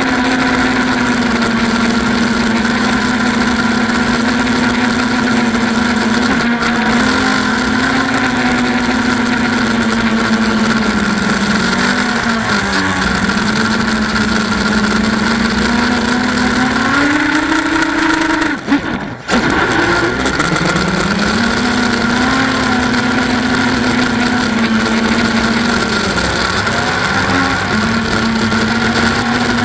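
Eachine Wizard X220 racing quadcopter's brushless motors and propellers buzzing loud and steady, heard from on board. The pitch drifts up and down as the throttle changes. About two-thirds of the way through, the sound drops out for under a second and then winds back up.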